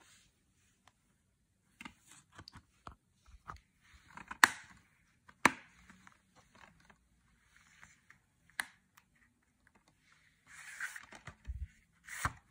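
Plastic Blu-ray case being snapped shut and handled: a string of sharp clicks and snaps, the two loudest about a second apart near the middle. Scraping, rustling handling of the case and its packaging follows near the end.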